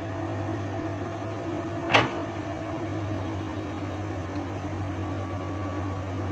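Komatsu PC200 excavator's diesel engine running steadily with a low hum. About two seconds in comes one short, sharp sound that falls quickly in pitch.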